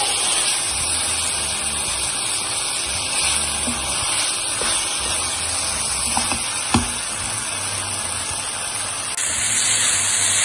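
Chicken pieces frying in ghee and masala in a pan, a steady sizzle, while a spatula stirs and scrapes against the pan with a few light knocks, the sharpest about two-thirds of the way through. The masala is being roasted down until dry.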